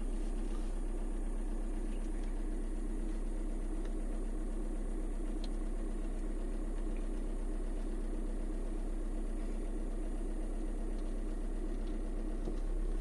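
Safari vehicle's engine idling steadily, an even low drone.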